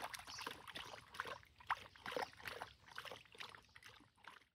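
A Saint Bernard lapping water from a shallow puddle: irregular wet splashes and laps, fading out near the end.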